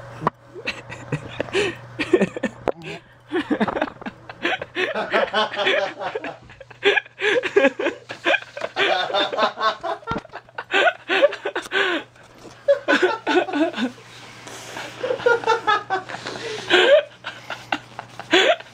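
Men laughing hard in bursts, with some talking mixed in.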